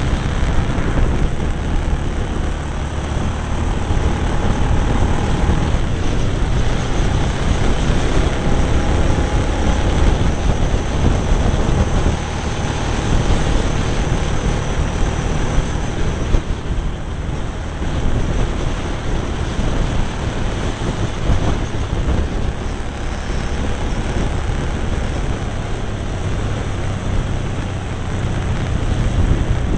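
Cagiva Navigator motorcycle's V-twin engine running steadily at road speed, mixed with wind rushing over the microphone.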